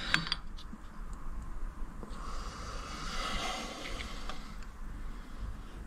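Digital calipers handled against a freshly turned cylinder cover: a few faint clicks near the start, then a soft rustle about two to four seconds in.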